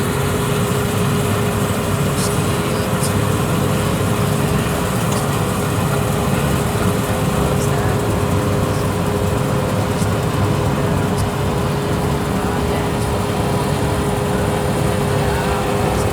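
Combine harvesting machinery running steadily, a continuous diesel drone with two steady held tones over it and a few faint ticks.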